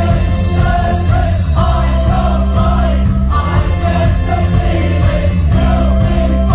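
Live pop-rock band playing, with bass, drums and cymbals, while a crowd of many voices sings the melody along with it.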